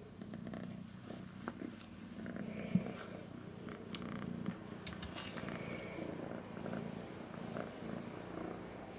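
Domestic cat purring steadily while being stroked, with a few brief soft clicks in the first half.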